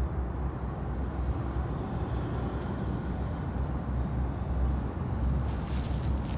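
Steady low outdoor rumble with a faint hiss above it, the kind of background noise picked up by a microphone in the open.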